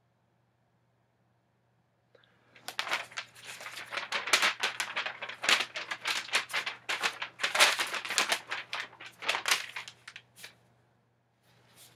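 A sheet of paper crinkling and rustling as it is handled, in a rapid, irregular run of crackles that starts about two and a half seconds in and goes on for about seven seconds.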